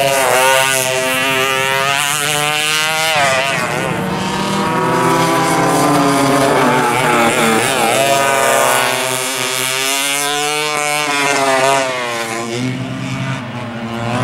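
Vintage dual rear-engine racing karts on track, their engines revving up and down as they pass and go through corners. Several overlapping engine notes rise and fall in pitch repeatedly.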